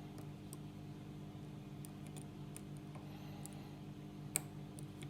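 Faint, scattered clicks and ticks of a steel hook pick and tension wrench working the pin stack of a Master Lock lockout padlock, with one sharper click about four seconds in. A steady low hum runs underneath.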